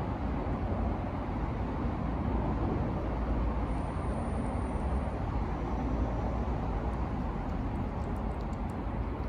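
Steady low rumble of distant road traffic, with a few faint ticks near the end.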